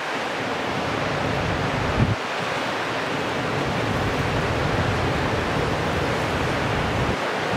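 Steady wind noise buffeting the microphone, a low rumble with one brief thump about two seconds in.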